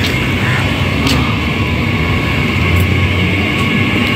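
Steady rumble of vehicle noise, with a few faint clicks.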